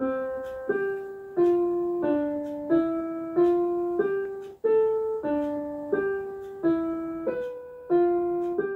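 Intro music: a slow melody played one note at a time on a piano-like keyboard, about one and a half notes a second, each note fading before the next.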